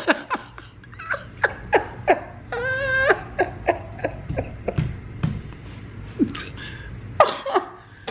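A woman laughing hard in short, rapid bursts, with a high drawn-out squeal about three seconds in.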